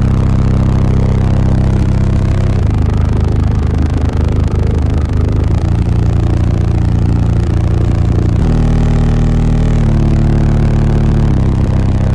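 Very loud bass from six Sundown U15 15-inch subwoofers in a fourth-order box, heard inside the vehicle's cabin. They hold deep bass notes that step to a new pitch every one to three seconds.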